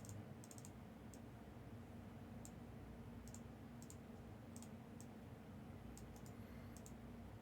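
Faint, irregular clicks of a computer keyboard and mouse over a low steady room hum.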